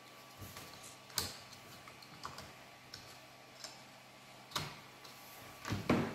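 Scattered small clicks and taps of a memory card being handled and plugged in at the side of a laptop, with a louder bump and rustle near the end.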